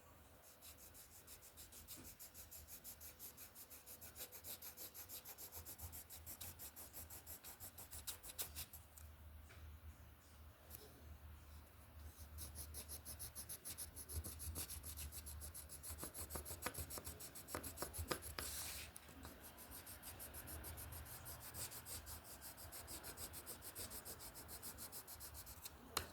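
Pencil or crayon scratching on paper in quick back-and-forth strokes, colouring in an area of a drawing, with a short pause about a third of the way through.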